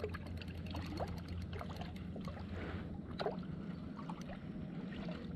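Water sounds at a kayak as a small hooked fish is reeled up to the surface: small splashes and drips with a few brief rising plops, light clicks scattered through, and a steady low hum underneath.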